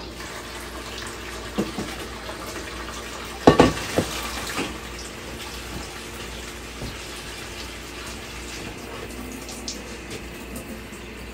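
Kitchen faucet running steadily, with a few knocks and clanks of cookware. The loudest clatter comes about three and a half seconds in.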